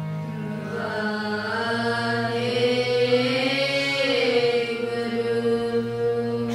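Children's kirtan group singing a slow Raag Dhanasari line in unison, long held notes that slide gently up and down, over a steady harmonium accompaniment.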